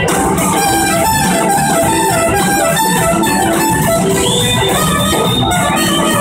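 Blues-rock band playing live: electric guitars over drums, with horns.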